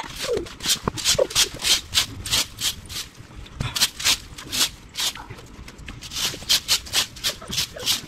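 Rhythmic scratchy strokes of a rake or broom dragged over the ground, about two or three a second, as debris is raked and swept up.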